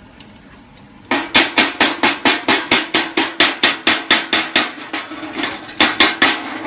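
Chipping hammer rapidly striking a fresh stick weld to knock off the slag: sharp metallic blows about five a second, starting about a second in, each with a short ring.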